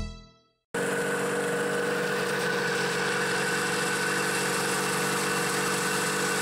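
Polaris snowmobile's two-stroke engine idling steadily. It starts suddenly about a second in and cuts off sharply at the end.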